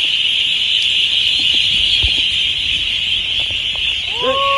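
A steady, shrill high-pitched drone that never lets up, with a few faint knocks. Near the end, a single drawn-out call with a wavering pitch cuts in, like a voice calling out.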